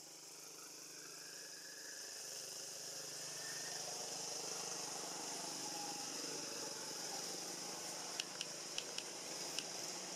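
A motor vehicle's engine running steadily, growing louder over the first four seconds, under a steady high hiss. About five sharp clicks come in quick succession near the end.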